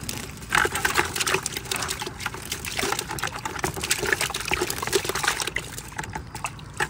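Live pinfish splashing into a bucket of water as they are shaken out of a wire-mesh bait trap, with water trickling from the trap and irregular splashes and knocks throughout.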